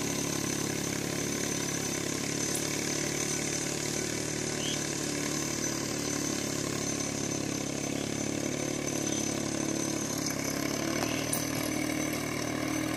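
VST Mitsubishi mini tractor running steadily with its mounted mist sprayer working: an even engine drone with a high steady whine over it.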